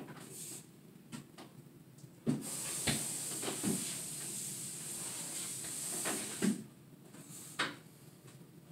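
Slow footsteps and soft knocks of a prosthetic leg and shoes on a wooden walkway platform between parallel bars. A steady high hiss lasts about four seconds in the middle, starting and ending with a thump.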